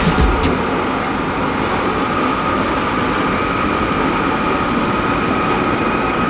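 Heavy road-construction machinery running steadily, engine noise with a constant high whine over it; a few sharp clicks in the first half second.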